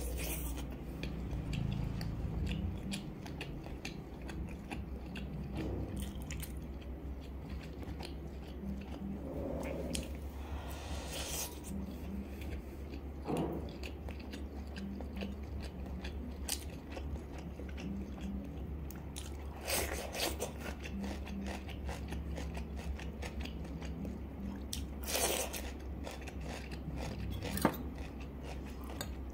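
Close-miked wet chewing and biting of grilled pork sausage (nem nướng), with many small mouth clicks and a few louder bites, over a steady low hum.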